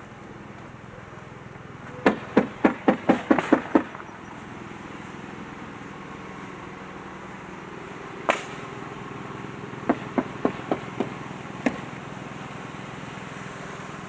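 Hammer blows on the roof: a quick run of about eight strikes at roughly four a second, a single strike, then a run of five more and a last one, typical of roofers nailing down shingles. A steady low hum runs underneath.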